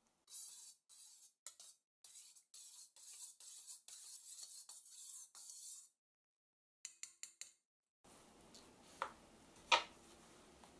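A metal spoon stirring dry yeast into water in a stainless steel bowl: a run of soft, high scraping swishes for about six seconds, then a few quick light clicks. Two knocks near the end as the spoon is set down on the board.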